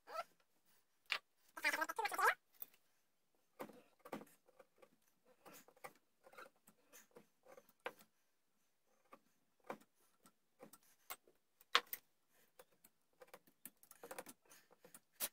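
Hand chisel cutting and paring wood from a notch in a wooden gunstock: irregular short scrapes and clicks, with a longer scrape about two seconds in.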